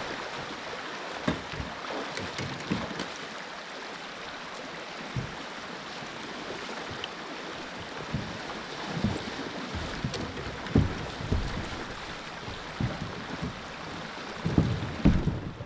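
Steady rush of flowing river water, with scattered short low thumps that come more often near the end.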